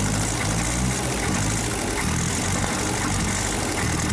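Starter motor cranking a car engine fitted with polyurethane pistons, turning it over steadily with a pulsing beat but not firing: there is compression, but the engine is short of fuel to catch.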